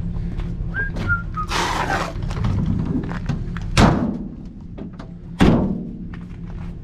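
Two heavy thunks about a second and a half apart, over a steady low hum and background music.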